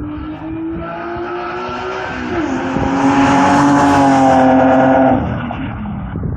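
BMW E36 M3 straight-six through a UUC exhaust and custom headers, accelerating with its pitch climbing. It shifts up about two and a half seconds in, pulls again at its loudest, then drops off about five seconds in.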